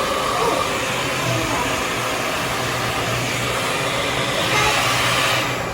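Handheld hair dryer running steadily, a loud rush of air over a low motor hum. It grows a little louder about four and a half seconds in and cuts off suddenly at the very end.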